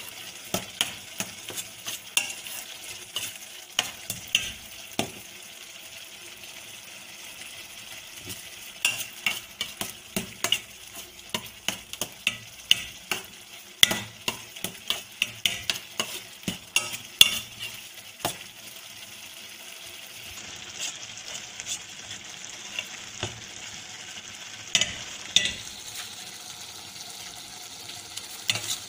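A metal spoon scraping and clinking against a steel pan in spells of quick strokes as curdled milk is stirred and cooked down into milk kova, over a steady faint sizzle from the pan.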